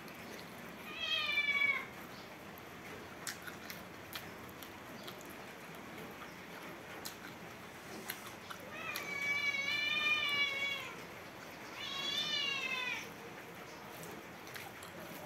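A cat meowing three times: a short meow about a second in, then a long drawn-out meow and a shorter one toward the end. Faint clicks of eating by hand fall between the meows.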